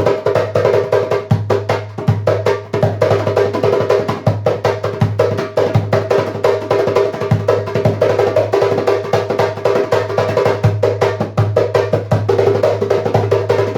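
A 10-inch Meinl djembe with a synthetic head, played by hand in a fast, continuous rhythm of many closely spaced strokes.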